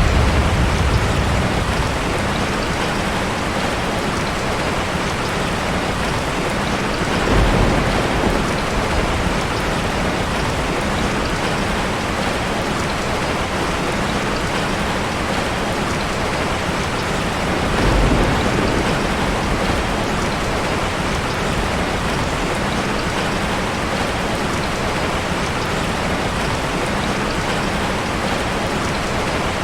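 Steady rain falling, with low rumbles of thunder: one fading away at the start, then two more, about 7 seconds in and just past the middle.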